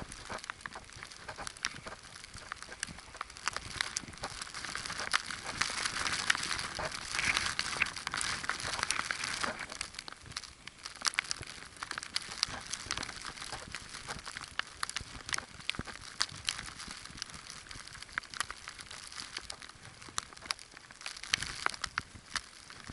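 Footsteps crunching through snow, an irregular crackling of many sharp clicks over a hiss, busiest for a few seconds early in the stretch.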